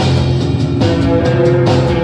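Rock trio playing live: sustained electric guitar notes over bass guitar and drums.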